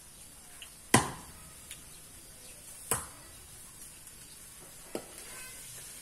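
Sharp popping from a wood-fired clay stove and the wok roasting insects on it: three loud pops about two seconds apart, the first the loudest, with a few fainter clicks between them.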